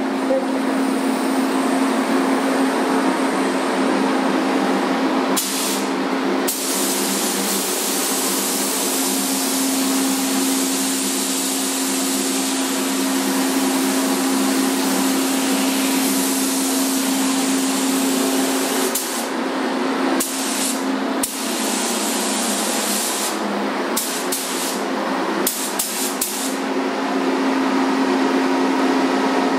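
Gravity-feed automotive paint spray gun hissing as it sprays a car bumper. The spray cuts off briefly a few times, most often in the second half, as the trigger is let off between passes, over a steady low hum.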